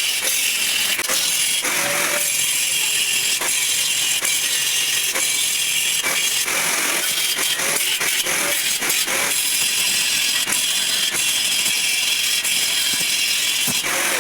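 Electric arc welding: a steady crackling hiss with frequent sharp pops, cutting off at the very end as the arc is broken.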